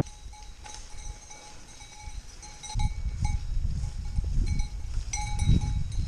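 Cowbells on a small herd of walking heifers clanking irregularly, each strike a bright metallic ring. Low rustling noise rises about halfway in.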